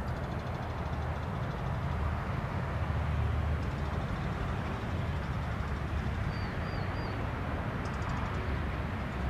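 Steady low rumble of outdoor ambience, with a short, high, wavy chirp about six seconds in.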